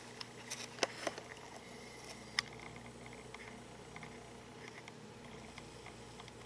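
Camcorder handling noise: small clicks and ticks over a steady low hum, the loudest clicks about a second in and again a little after two seconds.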